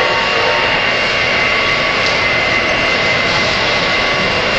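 Model trains running past on a layout: a steady, loud rumble of wheels and motors, with a few steady high tones over it.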